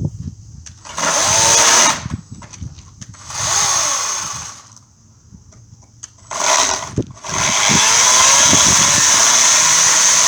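EGO 56-volt battery chainsaw with a 14-inch bar, its chain just dulled by a hidden screw, running in three short bursts and then steadily for about three seconds near the end. The motor's pitch falls and rises again in the second burst.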